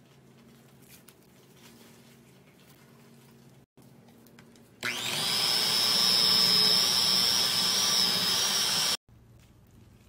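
Electric hand mixer running in thick cooked soap paste, beating it to a creamy texture. It starts about five seconds in with a short rising whine as it spins up, runs steadily for about four seconds and cuts off suddenly.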